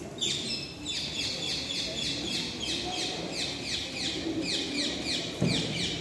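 Birds calling: a rapid, even run of high chirps, several overlapping, each falling in pitch, starting just after the beginning and going on throughout. A short low thump comes near the end.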